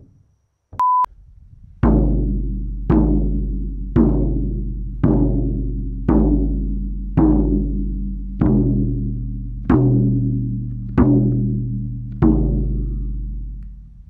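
Frame drum (shaman's drum) struck in a slow, steady beat: ten deep strikes about one a second, each ringing out before the next. A short steady electronic beep sounds just before the first strike.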